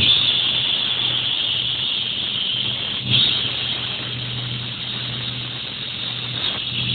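Automatic hydraulic lock-hole machine running, its electric spindle motors giving a steady low hum under a high hiss from the cutting, with a brief louder swell about three seconds in.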